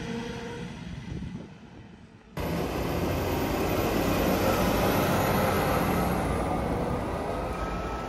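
Machinery running. About two seconds in, the sound dips and then cuts abruptly to a louder, steady machine noise with a faint high whine.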